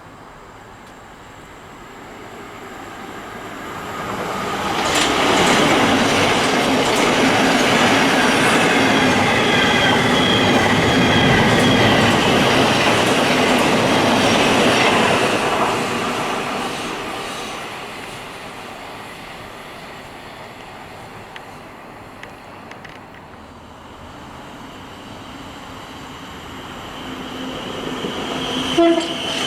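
A train passing through the station: the rumble builds over a few seconds, stays loud for about ten seconds with a high whine over the wheel noise, then fades away. A second train starts approaching near the end.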